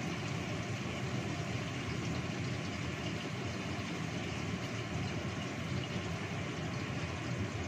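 Gas stove burner running steadily under a covered wok of fish in chili sauce simmering beneath a stainless-steel lid. An even, unbroken low rushing noise.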